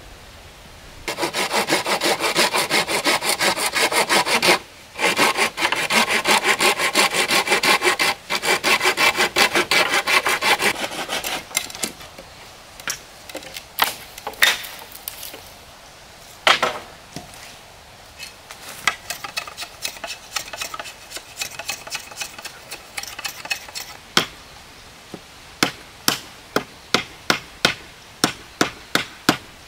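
Wood being sawn by hand: about ten seconds of quick back-and-forth strokes broken by two short pauses, then scattered knocks and, near the end, a run of evenly spaced strikes.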